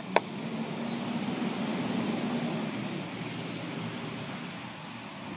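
A metal spoon taps twice sharply on a plastic cup at the start, then a garbage truck's engine rumbles, swelling about two seconds in and easing off.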